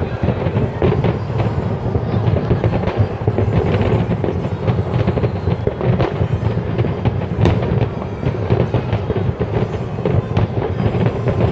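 Aerial firework shells bursting in a dense, unbroken barrage: many overlapping bangs and crackles over a continuous low rumble.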